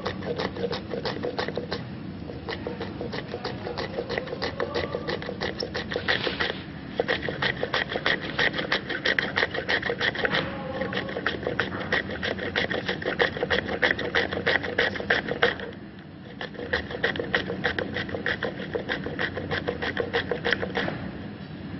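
Fast chopping of green chillies: a kitchen knife blade striking a wooden cutting board in a rapid, even rhythm of many strokes a second. The chopping pauses briefly twice, about six and a half seconds in and again around sixteen seconds.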